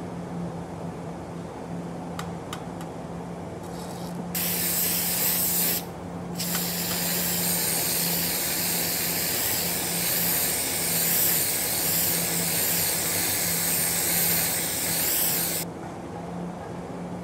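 A loud, steady hiss that starts suddenly about four seconds in, breaks off briefly, then cuts off abruptly near the end, over a steady low hum.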